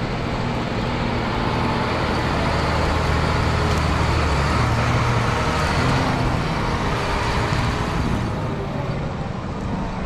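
John Deere 8310R tractor's diesel engine running steadily under load, with a broad rushing noise over it.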